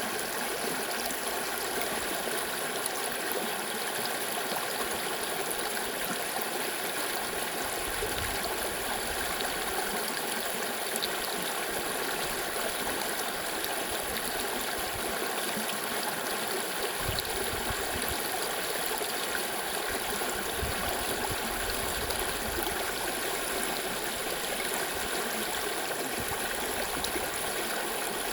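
A stream of water running steadily over rocks, an even babbling rush.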